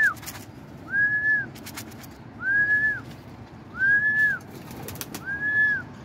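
A person whistling one short note over and over, about every second and a half, each note rising, holding and dropping away, to call an escaped pigeon back to the feed. A few short rattles of grain in a plastic feed dish come between the whistles.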